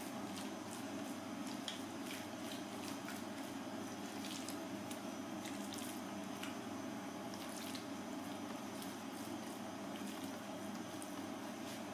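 Hands rubbing and pressing seasoning into raw deboned chicken legs on a wooden board: scattered small wet clicks and smacks of fingers on the meat, over a steady low hum.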